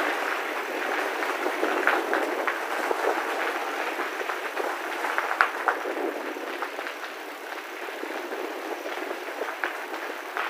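Mountain bike tyres rolling over a loose gravel path: a steady crunching noise with frequent small clicks and rattles from stones and the bike.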